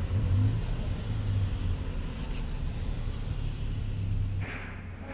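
Low, steady rumble of a motor vehicle in the street, with two short clicks about two seconds in.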